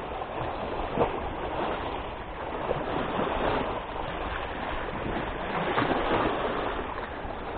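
Sea waves washing and splashing against the concrete blocks of a breakwater, a steady rushing noise, with a light knock about a second in.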